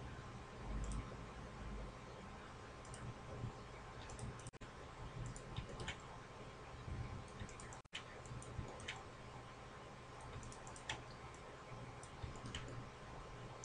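Computer mouse button clicking as points of a curve are placed on screen: single short clicks at irregular intervals, roughly one every second, over a faint steady background hum.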